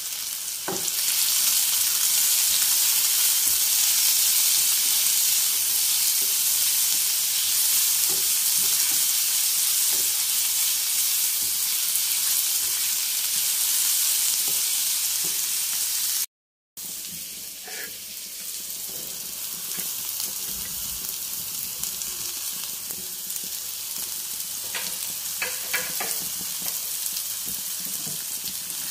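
Sliced green capsicum and onions sizzling in hot oil in a non-stick frying pan, stirred now and then with a spatula that scrapes the pan. The sizzle is louder in the first half, breaks off briefly about halfway through, then carries on more softly with a few scrapes.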